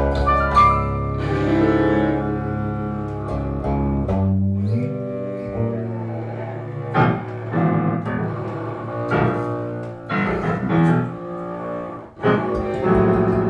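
Free improvisation on cello, bass and keyboard: long held low string notes, then a run of short, sharply attacked notes from about seven seconds in.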